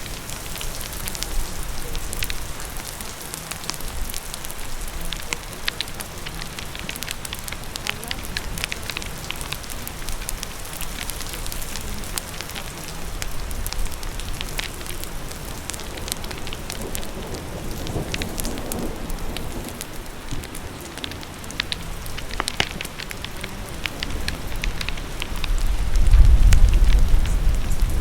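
Steady rain with the sharp, scattered pops and crackles of a wood fire on top. A deep low rumble swells near the end.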